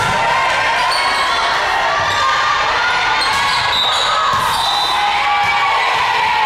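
Many voices shouting and cheering during a volleyball rally in a gym, with scattered thuds of the ball being hit and played off the floor.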